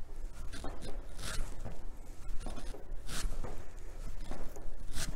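Clothing rustling and swishing in a slow rhythm as arms swing up and down in jumping jacks, the strongest swish roughly every two seconds.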